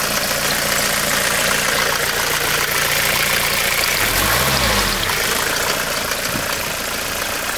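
Mercedes-Benz 190D's 2.2-litre four-cylinder diesel (OM601) running soon after a cold start with no working glow plugs, briefly revved and let back to idle about four seconds in.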